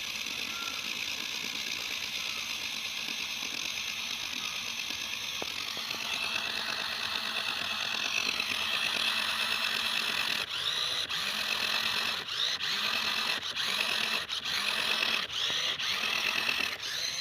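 Radio-controlled car's motor whining at a steady high pitch. It gets louder about six seconds in, and in the second half it cuts out briefly several times as the throttle is let off and opened again.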